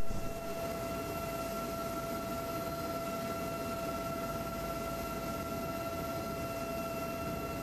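Super Puma helicopter heard from inside, a steady high whine over an even rushing noise, unchanging throughout.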